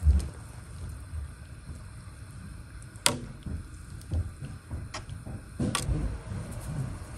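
Metal spoon stirring soup in a large stainless steel pot, with a few sharp clinks of the spoon against the pot, the loudest about three seconds in, over low knocks of the stirring.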